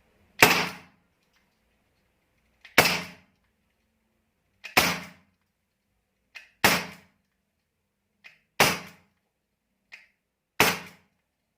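Gamo GR-Striker CO2 pellet revolver firing six double-action shots at an even pace, about two seconds apart, each a sharp report. A light click comes just before most of the shots.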